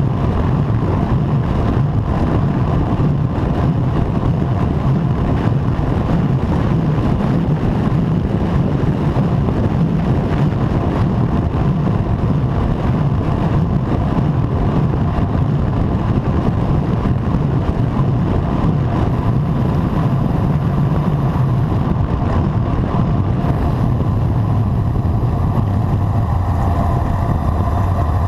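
Steady, loud wind rush over the camera microphone of a road bike descending at around 50 km/h, with a low road rumble underneath.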